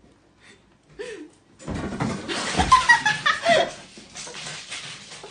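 A person laughing loudly for about two seconds, starting a little under two seconds in and then dying down.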